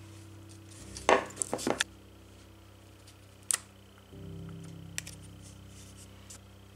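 Small sheet-metal model pieces and hand tools clicking and tapping as they are handled: a quick run of several sharp clicks about a second in, then single clicks about halfway through and again shortly after. Soft background music with held tones plays underneath.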